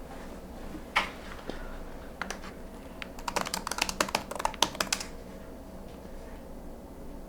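A single sharp click about a second in, then a quick run of small clicks and taps lasting about two seconds.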